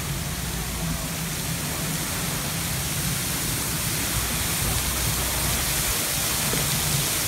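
Burst water main jetting water high into the air: a steady rushing hiss of the jet and spray falling on the road, growing slightly louder.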